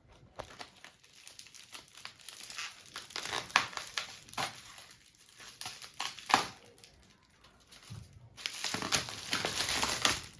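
Packaging crinkling and rustling as products are handled and unwrapped, in scattered short crackles with a denser, louder run of crinkling near the end.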